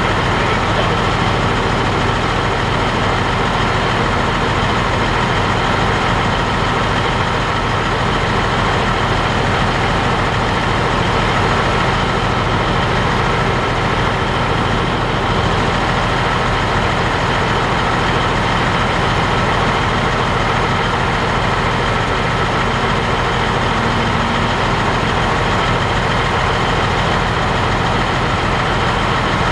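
Heavy diesel semi-truck engine idling steadily.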